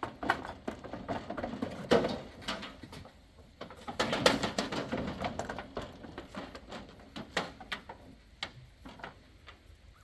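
Goats playing and jumping about: scattered sharp knocks and scuffles from their hooves, louder in a few short bouts.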